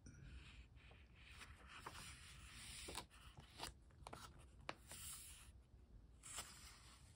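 Faint rustle of a small Pentalic sketchbook's paper pages being turned by hand and rubbed flat, with a few sharp crackles of the page in the middle.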